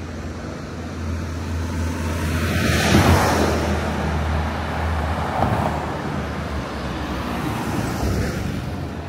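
Street traffic on a wet road: tyre hiss from passing vehicles swells about three seconds in and again near the end, over a low engine rumble that eases off about halfway.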